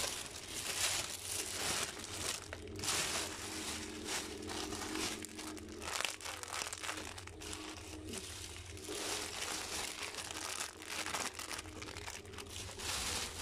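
Clear plastic shopping bag and plastic-wrapped yarn packs crinkling as they are handled and turned over, in quick irregular rustles throughout.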